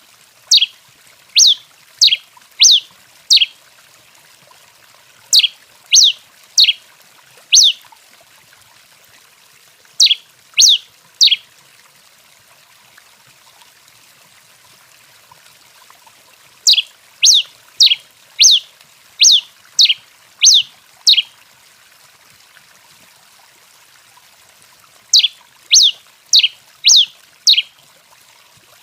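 Tico-tico-rei finch calling: series of short, sharp, high notes, each sliding steeply downward, given in five bursts of three to eight notes with pauses between, over a faint steady hiss.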